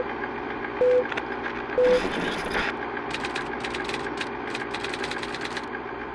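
Film-leader countdown sound effect: short beeps a second apart over a steady mechanical whir of a film projector, a brief burst of hiss about two seconds in, then a run of rapid typewriter key clicks.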